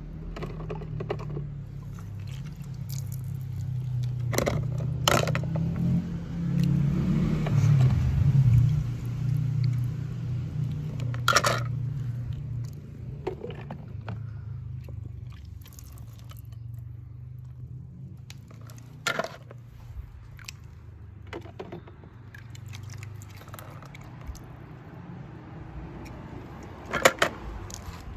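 Toy cars handled in a water-filled plastic tub: low muffled water and handling noise with a handful of sharp clicks and knocks as the toys hit the plastic, the loudest near the end.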